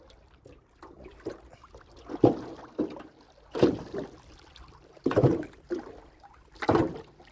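Water splashing and knocking around a small boat, about five separate splashes a second or so apart, as a prawn trap is worked out of the water.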